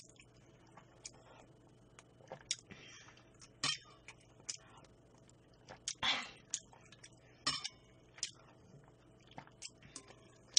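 A metal spoon clinking and scraping against a stainless steel bowl in a series of light, scattered clicks, with a few brief eating and sipping sounds between them.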